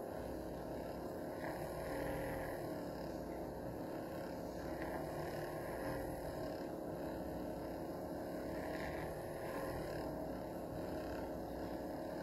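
Built-in fold-away milk frother of a Ninja CFN601 coffee system, its small motor spinning the whisk in a glass of milk with a steady, even hum.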